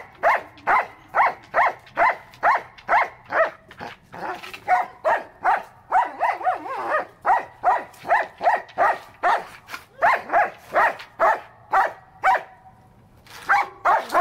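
German Shepherd barking over and over in a fast, even run of about two to three barks a second, with a short pause about a second before the end and then a few more barks.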